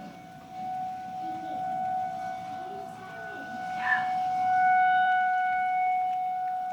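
Federal Signal 2001-series outdoor warning siren sounding for its scheduled test, holding one steady pitch while its loudness swells and eases as it turns. A brief sharp sound cuts in about four seconds in.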